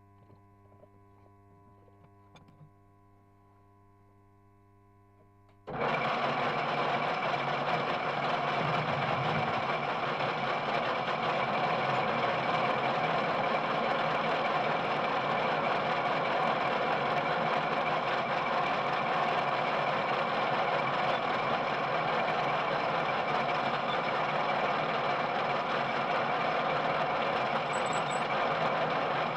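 Faint electrical hum, then about six seconds in a metal lathe comes in abruptly and runs steadily and loudly, a dense mechanical noise with several steady whining tones.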